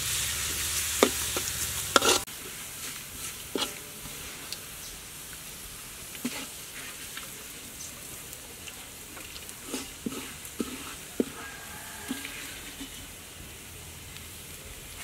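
Minced garlic frying in oil in a metal wok, sizzling, with sharp clicks of a metal ladle stirring it. About two seconds in the sizzle drops suddenly to a quieter hiss, broken by occasional light clicks and taps.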